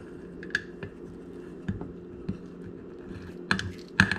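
Kitchen scissors snipping through raw bacon: a handful of sharp, scattered snips and clicks, the loudest near the end, over a steady low hum.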